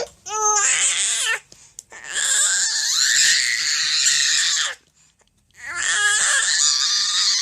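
Baby making weird, cry-like vocal noises: a short high-pitched cry, then a long raspy screech of about three seconds, then another raspy cry near the end.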